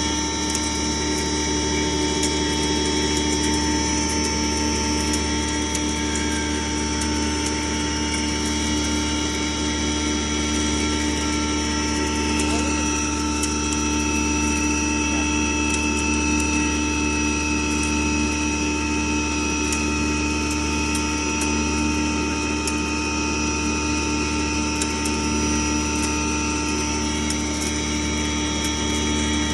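Stoneless double-chamber maize grinder machine running steadily: a constant hum with several steady whining tones over a rattling mechanical noise.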